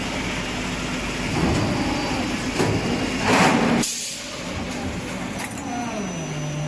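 Kronce 18-cavity PET preform injection moulding machine running through its cycle. Steady machine noise carries a loud hiss that builds, then cuts off suddenly about four seconds in. Near the end comes a click, then a hum that drops in pitch and holds steady.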